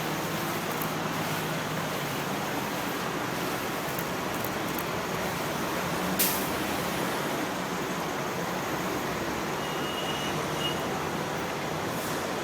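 Steady traffic noise of passing vehicles, with one short sharp click about six seconds in.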